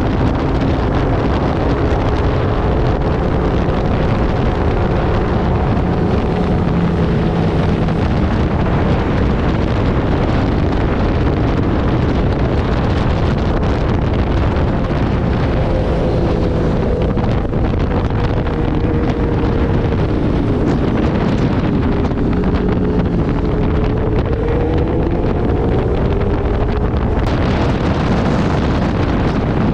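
Wind buffeting the microphone over a motorcycle engine running at speed, its pitch drifting up and down with the throttle.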